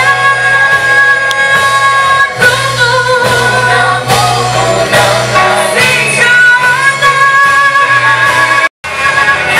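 Swahili gospel praise song: a group of singers holding long notes over instrumental backing with a steady bass line. The sound cuts out for an instant near the end.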